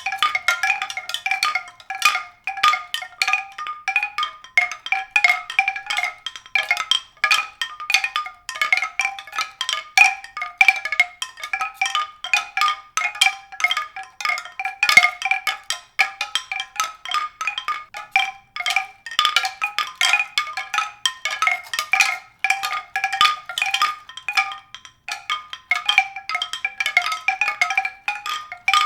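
Mallet percussion music: a steady, unbroken stream of quick struck notes, several a second, in a narrow upper-middle range of pitches.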